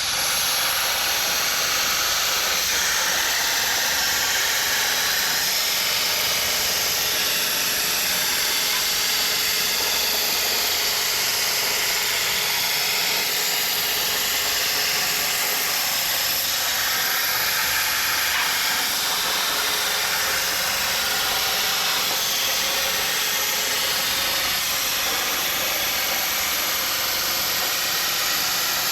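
CNC plasma cutter cutting steel plate: a loud, steady hiss of the plasma arc and its compressed air.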